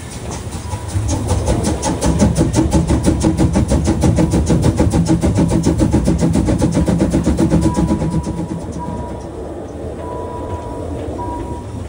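Narrow-gauge steam train running past with a fast, even beat of about seven a second, which fades after about eight seconds. A few short, thin high tones sound near the end.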